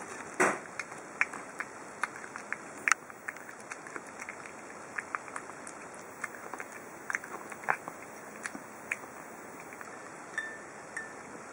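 Cat eating raw tuna from a small ceramic plate: irregular wet smacks and clicks of chewing and licking, over a steady background hiss.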